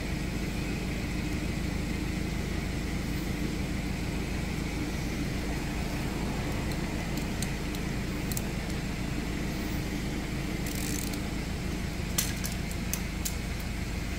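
A steady low hum in the background, with light metallic clicks and taps near the end as a small starter motor and its solenoid are handled and fitted back together.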